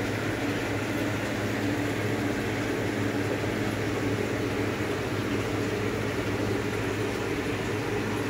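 Steady mechanical hum with an even hiss, the running noise of aquarium air pumps and water filtration in a fish room.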